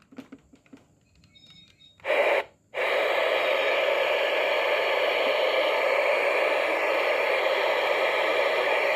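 Radio receiver static: a short burst of hiss about two seconds in, then steady, even hiss from about three seconds on, with no station coming through. The sign of a weak or untuned signal: the station WMHK isn't being received.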